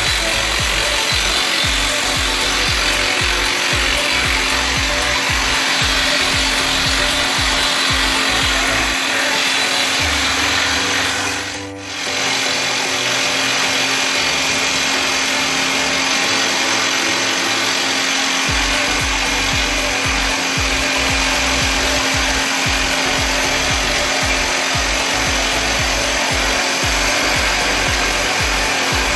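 Hydraulic rock drill of a Resemin Raptor 55 long-hole drilling rig running continuously, drilling with a 64 mm bit: loud, steady percussive hammering over a constant hum. The noise dips briefly about twelve seconds in.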